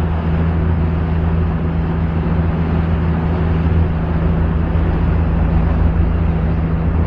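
Motorboat engine running steadily, a constant low hum with an even rushing noise over it and no change in pitch.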